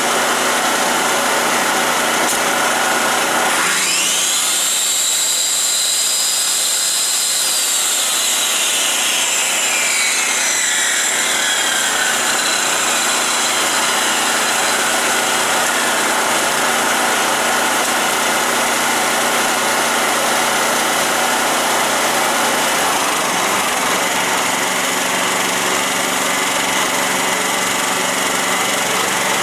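Yamaha EF2800i inverter generator's single-cylinder four-stroke engine running steadily at full speed, economy mode off. A few seconds in, a Skilsaw circular saw powered from it spins up with a high whine, runs free for about four seconds, and then winds down slowly once released.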